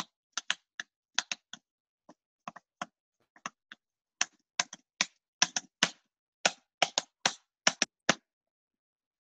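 Typing on a computer keyboard: a run of irregular key clicks, some in quick pairs, which stops about a second before the end.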